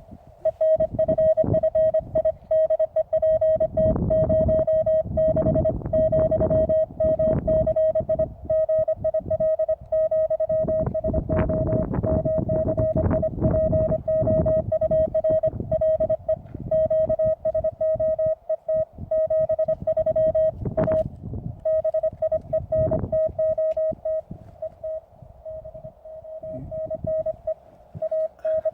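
Morse code from a Weber MTR QRP transceiver: a steady tone of about 600 Hz keyed on and off in quick dots and dashes, with bursts of low rumbling noise underneath.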